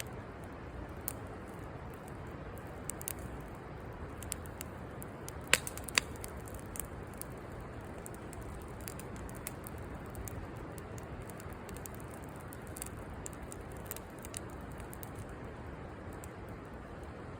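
Campfire burning with a steady hiss and scattered crackles, two sharp pops of burning wood about five and a half and six seconds in.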